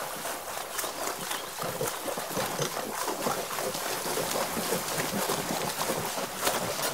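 A horse wading through a shallow stream while pulling a cart: hooves and cart wheels splash through the water in a dense, uneven run of splashes.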